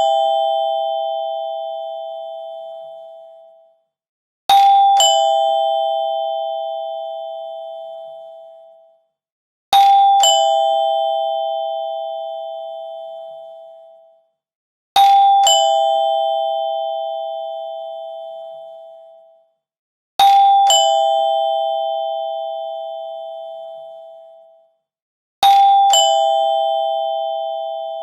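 Two-tone doorbell chime ringing ding-dong: a higher note, then a lower one about half a second later, each ringing out for about three seconds. The ring repeats about every five seconds, five times, with the fading tail of an earlier ring at the start.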